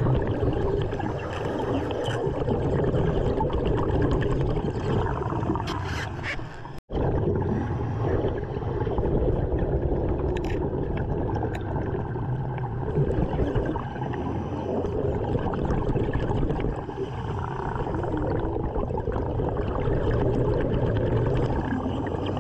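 Steady underwater noise of water and a diver's breathing bubbles, picked up by a camera below the surface, with a momentary break about seven seconds in.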